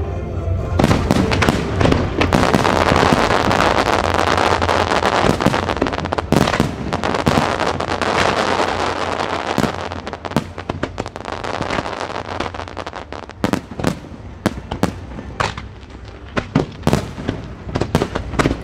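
Aerial fireworks going off: a dense run of crackling and bangs from about a second in, thinning past the halfway point into separate sharp bangs and pops.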